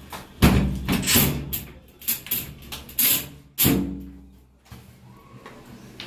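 A run of sharp knocks and bangs, about five in the first four seconds, from handling the washing machine's door or panels, then quieter.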